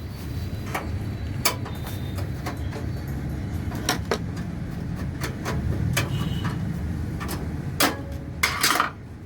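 Sharp metallic clicks and a short scrape as the screw holding a PC cabinet's expansion-slot cover is taken out, over a steady low rumble.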